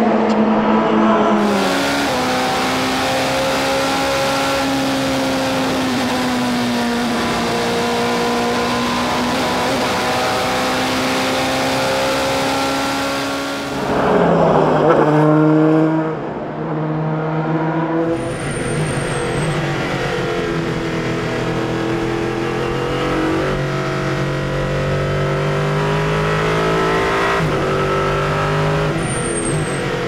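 Racing car engines at high revs on track, heard in a run of short clips. Each clip holds a long, steady engine note that slides slowly up and down in pitch. About halfway through, a car passes with a sharp drop in pitch.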